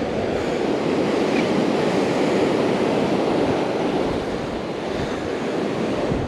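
Ocean surf washing onto the beach, a steady rushing that swells a little toward the middle and eases off near the end, with wind buffeting the microphone.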